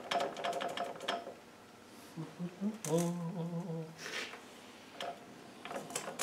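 Gears and shafts of a Land Rover R380 five-speed manual gearbox clicking and ratcheting as the shafts are worked by hand. A quick run of metallic clicks comes in the first second, then a few scattered single clicks near the end, with a brief low hum from a person in between.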